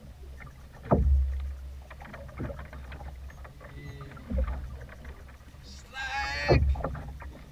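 Small boat rocking in choppy sea, with waves knocking against the hull in three heavy low thuds, about a second in, after four seconds and near the end, and water washing between them. Just before the last thud a man calls out briefly.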